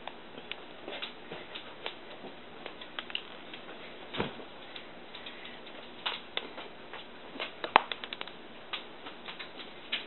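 Small round sugar-pearl sprinkles clicking and pattering irregularly as they land and bounce on the cake plate and counter, with a duller knock about four seconds in and a quick run of clicks near the middle.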